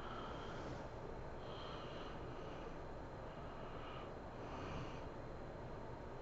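A sleeping woman snoring and breathing heavily, with a breath roughly every second and a half over a steady background hiss.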